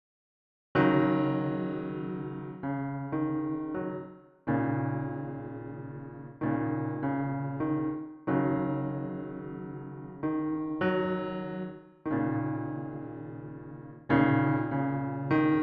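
Keyboard playing slow piano chords, each struck and left to fade, a new chord every second or two, starting about a second in after silence.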